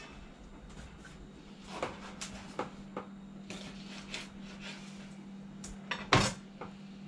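Kitchen knife cutting fish on a plastic cutting board: scattered light taps and knocks, with one louder knock about six seconds in, over a steady low hum.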